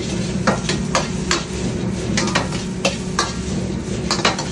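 Fried rice sizzling in a very hot wok while it is stir-fried, the utensil scraping and knocking against the wok about twice a second, over a steady low hum.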